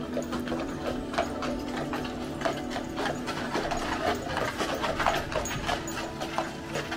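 Shod hooves of a pair of heavy draught horses pulling a wagon, clip-clopping on a paved road in a quick, irregular clatter of many strikes a second.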